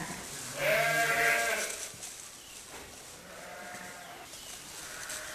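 Sheep bleating: one loud, drawn-out bleat about half a second in, lasting about a second, then a fainter bleat about three seconds in.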